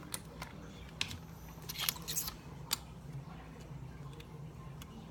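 A few short, sharp clicks and crackles of small objects being handled close by, bunched around the middle, over a low steady hum.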